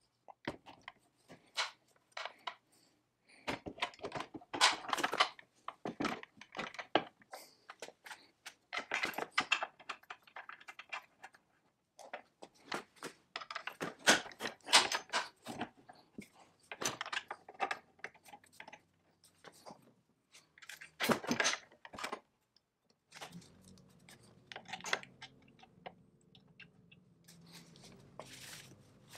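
Cast-iron and steel parts of a Foley Automatic Filer Model 61 saw sharpener being handled and fitted by hand: irregular metallic clicks, clinks and short scraping rasps, with denser clusters of handling now and then.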